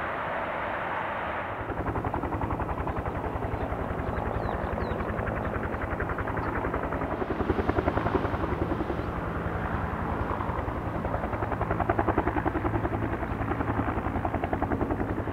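Aircraft engine noise at an airport, a steady loud rumble that takes on a rapid fluttering pulse a couple of seconds in.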